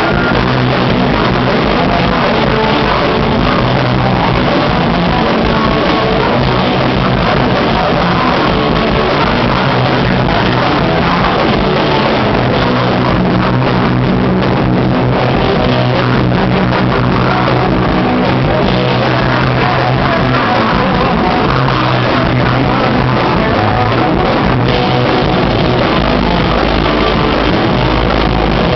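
A rock band playing live and loud without a break, with guitar and a singer.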